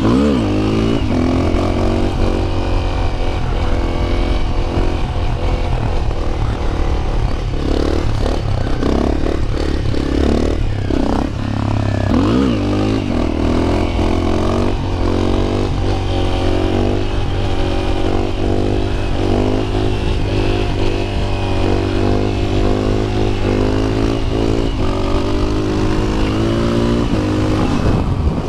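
Honda CRF250L's single-cylinder four-stroke engine running while being ridden. The note rises and falls again and again as the throttle is worked and gears change, more often in the second half.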